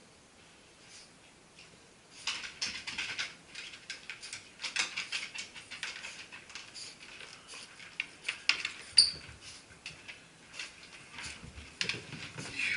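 A small dog's claws clicking and pattering on a hardwood floor as she trots and scampers about, with a person's footsteps among them; starts about two seconds in. About nine seconds in comes one louder sharp click with a brief high ring.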